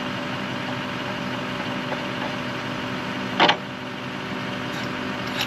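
An engine idling steadily, with one short, loud knock about three and a half seconds in.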